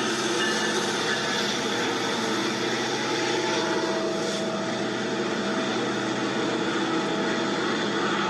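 Diesel locomotive running with a steady, heavy engine drone and no horn.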